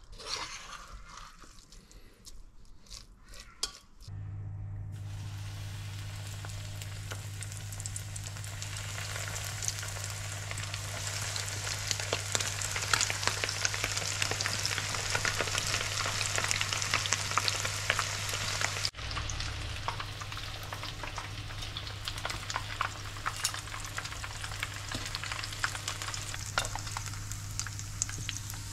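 Crumbed fish strips frying in hot oil in a pan: a steady, crackling sizzle over a low, even hum. It begins a few seconds in, after some quiet spoon clicks against a pot.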